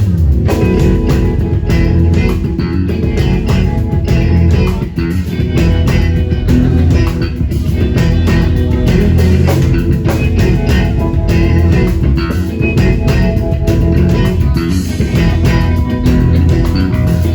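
Live band music led by guitar and bass guitar, played without singing.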